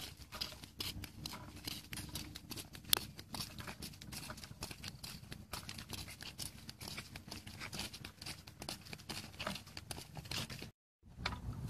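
Irregular scuffing and clicking of people walking on a dirt track carrying plastic buckets and a hoe, over a low rumble, with one sharper click about three seconds in; the sound cuts out briefly near the end.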